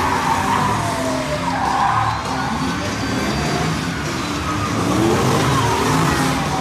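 Tyres squealing as a stunt ute drifts in circles, with its engine revving hard under it.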